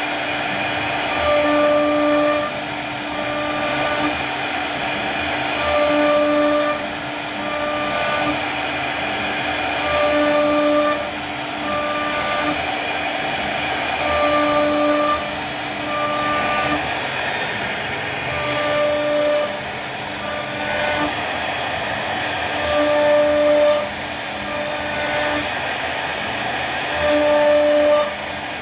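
CNC router cutting wood: steady motor noise with a faint high whine, and a pitched hum that comes and goes every couple of seconds, the sound getting louder each time the hum is on.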